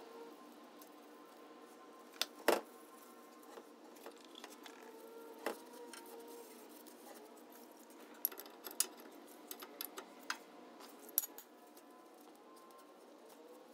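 Scattered light metallic clicks and clinks of hand tools and small parts being handled, with a sharper knock about two and a half seconds in and a run of quick clicks past the middle.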